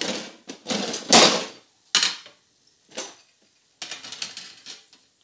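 Kitchen utensils clattering and scraping against the pot while freshly deep-fried, puffed pig-ear crackling is lifted out of the oil: a run of short, noisy clatters with pauses between, the loudest about a second in.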